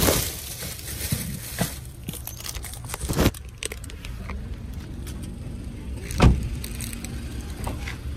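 A few sharp knocks and thumps from handling and movement inside a car, the loudest about six seconds in, over a low steady rumble.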